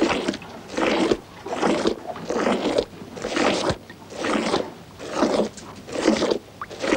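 Cow being milked by hand: milk streams hissing into a pail in a steady rhythm, a little more than one squirt a second.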